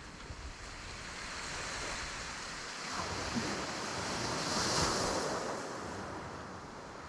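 Sea waves washing onto the shore: a steady hiss that swells to its loudest about five seconds in, then draws back.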